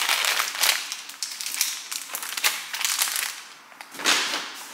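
Plastic grocery packaging crinkling and rustling as it is handled, in irregular bursts, easing off briefly just before the end.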